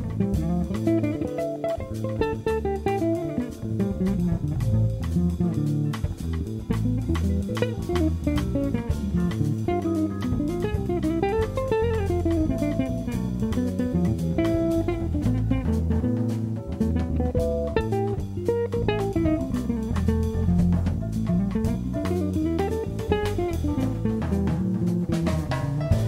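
Archtop electric jazz guitar soloing in fast single-note runs that climb and fall, over bass and drum kit in a Latin jazz ensemble.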